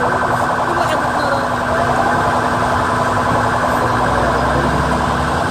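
Emergency vehicle siren wailing under a loud, steady din of vehicles at the scene.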